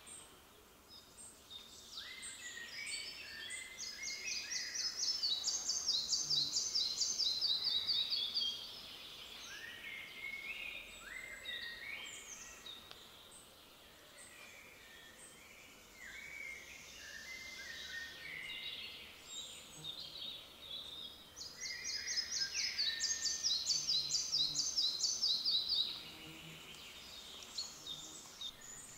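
Male red-breasted flycatcher singing two songs, each about four seconds of rapid repeated high notes that step down in pitch toward the end. Other songbirds sing more faintly between them.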